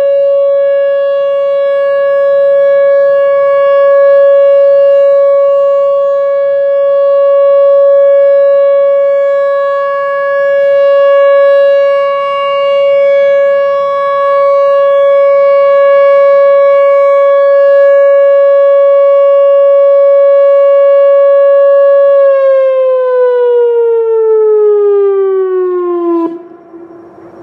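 Whelen Vortex R4 electronic warning siren sounding its steady alert tone at about 560 Hz, swelling and fading as its rotating horn turns. A shaky, vibrating quality comes from the siren itself, which the owner puts down to the screen vibrating or a driver wearing out. Near the end the tone falls in pitch and cuts off.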